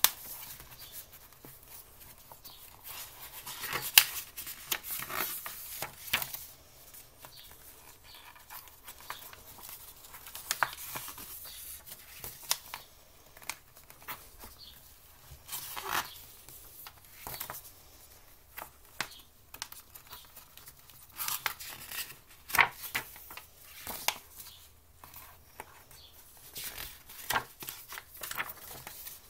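Pages of a bound paper book being turned and handled: irregular paper rustles and sharp flicks, the loudest about 4 seconds in.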